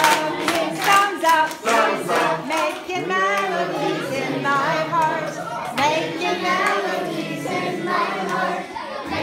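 A group of children singing together, clapping along in a steady beat.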